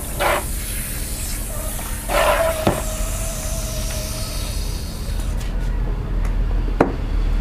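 Water from a garden hose running and splashing over a wet dog in a plastic basin, the hiss of the flow dying away about five seconds in as the tap is shut. A short steady whistling tone sounds about two seconds in, and there is a sharp click near the end.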